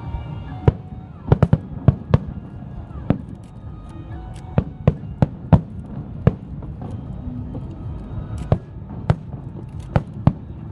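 Fireworks going off in irregular sharp bangs, several in quick succession a little over a second in, then scattered every half second to second, over a steady low background rumble.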